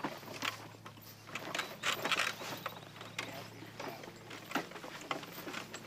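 Irregular soft footfalls and thuds in grass from a harnessed horse walking and people walking alongside, as the horse draws a mountain howitzer and limber, over a faint steady hum.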